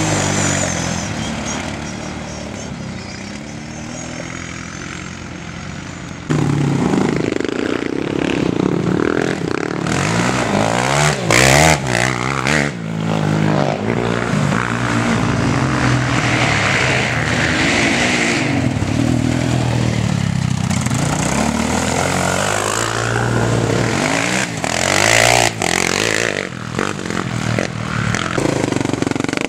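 Quad bike (ATV) engines running and revving on a dirt race course, their pitch rising and falling with the throttle. The sound jumps sharply louder about six seconds in.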